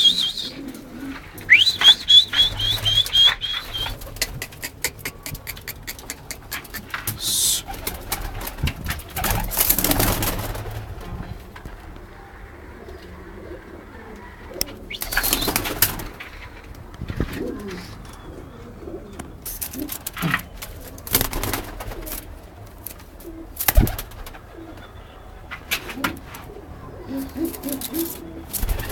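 Domestic pigeons cooing, with bursts of wing flapping and scattered clattering clicks. A quick run of high chirps comes about two seconds in.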